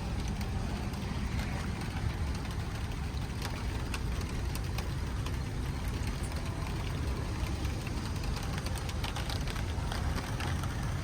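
Steady low rumble with light raindrop ticks scattered through it.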